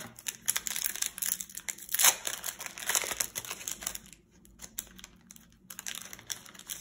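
A trading-card booster pack's plastic wrapper being torn open and crinkled in the hands. The crackling comes in irregular bursts, loudest about two seconds in, eases off for a second or so, then picks up again near the end.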